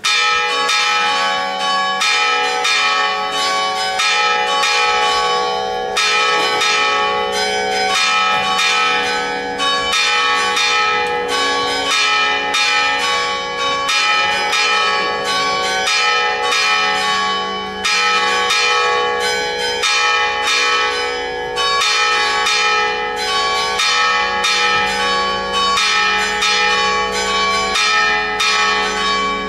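Church bells pealing: rapid, overlapping strikes of several bells, a few each second, their tones ringing on between strikes. The peal starts suddenly and loudly and keeps going without a break.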